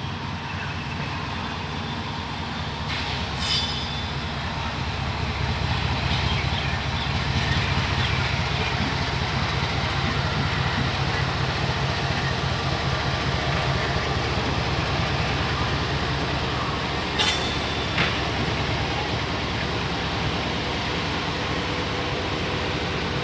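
Indian Railways hood-type diesel locomotive passing slowly at close range. Its engine throbs low and steady, swelling over the first several seconds as it draws near, under the rumble of wheels on rail. There are brief high-pitched squeaks once early on and twice close together later.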